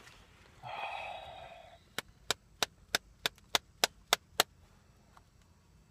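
Round tin of Timber Wolf dip being tapped to pack it: about nine sharp taps on the lid, roughly three a second, after a brief soft rustle.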